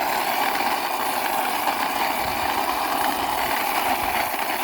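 A toy tronton truck pushed along by hand, its wheels rolling with a steady, even rolling noise.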